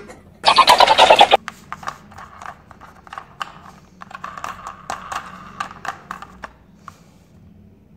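A battery-powered plastic toy train sounds off for about a second near the start with a loud, pulsing electronic sound effect. After that comes a run of light plastic clicks and rattles as the toy is handled and its wheels are turned.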